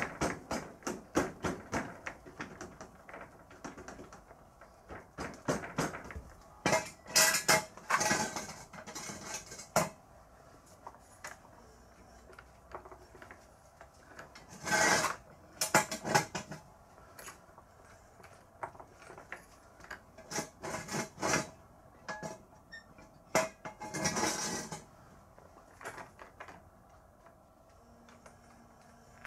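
Hand tools working on the metal parts of a Kubota rice transplanter's front axle during disassembly. A fast, even run of clicks comes first, then scattered clusters of metal clinks, knocks and scraping.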